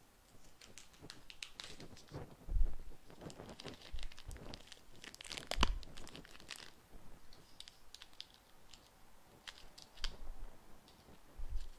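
Plastic Chalk Couture transfer sheet being pulled off its backing, crinkling and crackling irregularly, with a few dull thumps of handling on the table.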